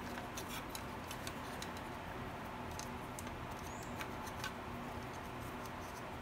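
Faint scattered ticks and clicks of multimeter probe tips and a plastic door-lock actuator housing being handled, over a steady low background hum.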